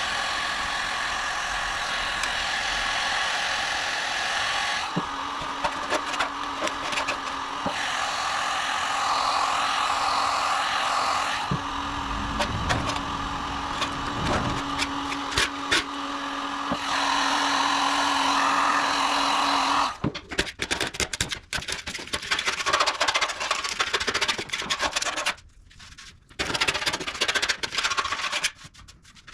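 Old paint and filler being abraded off a rusty steel Beetle wing: a steady abrasive rubbing for about twenty seconds, then choppier, broken scraping with short gaps near the end.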